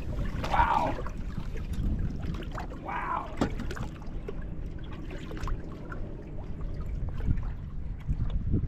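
Water splashing twice, briefly, about half a second in and again about three seconds in, over a steady low rumble.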